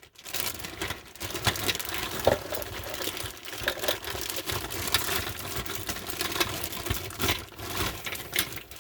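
Rustling and crinkling with many small irregular clicks: hands handling plastic parts while working at the unit.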